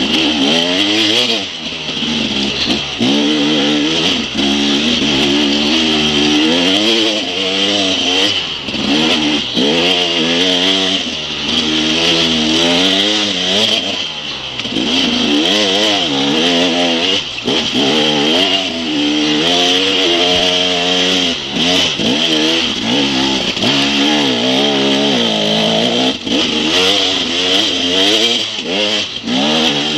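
KTM 250 EXC two-stroke enduro motorcycle engine heard on board, its revs rising and falling constantly as the rider works the throttle and gears, with brief dips where the throttle closes. A steady high hiss runs under the engine.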